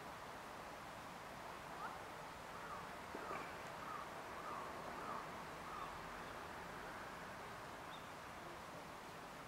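A crow cawing in a run of about six short calls, roughly two a second, starting about two seconds in, over a steady background hiss.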